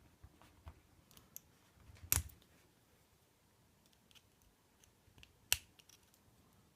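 Small metallic clicks and taps from lock-picking tools working an ABUS C83 padlock, with two sharper clicks, about two seconds in and again near the end.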